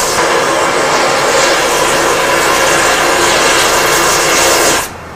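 Hand-held gas torch burning with a loud, steady rushing hiss as it heats a steel plate toward cherry red. It cuts off suddenly near the end.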